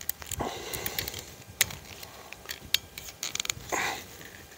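Plastic clicks and snaps from a Bosch Icon wiper blade's clip adapter as it is worked onto the wiper arm and closed. There are scattered sharp clicks, several close together about three seconds in, and short stretches of rubbing between them.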